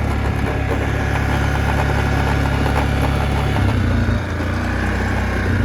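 Yamaha Kodiak 450 ATV's single-cylinder engine idling steadily, with a brief change in its note about two-thirds of the way through.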